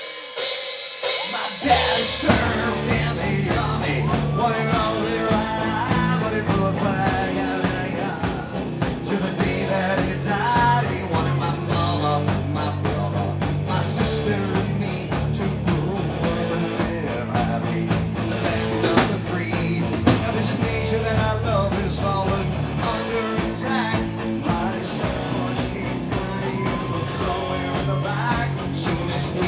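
Rock band playing live and loud through a PA, with distorted electric guitar, bass, a drum kit and a singer. The full band comes in about two seconds in.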